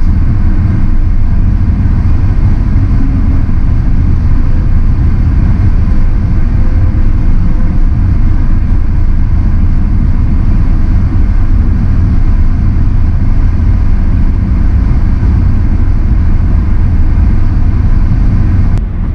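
Steady low rumble of road and engine noise from a car travelling at highway speed.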